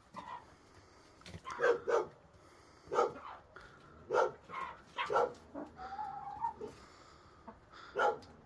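A dog barking repeatedly, in single and double barks a second or so apart, with a brief steady higher call about six seconds in.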